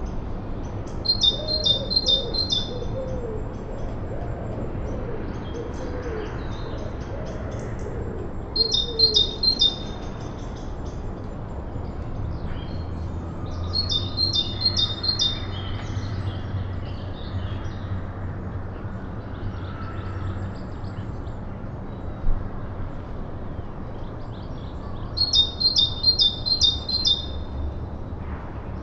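A songbird repeating a short, rapid phrase of high, evenly spaced notes four times, with fainter chirps between, over a steady low rumble.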